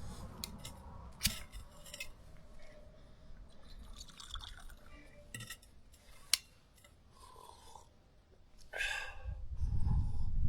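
Faint, scattered clinks and light sloshing of ice and water in a frozen-over water bucket, with a couple of sharper clicks.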